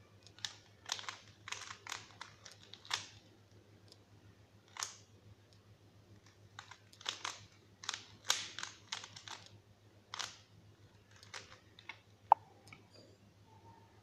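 A plastic 3x3 puzzle cube being turned by hand, its layers clicking and clattering in irregular flurries of quick turns with short pauses between. A single sharp, louder click comes about twelve seconds in.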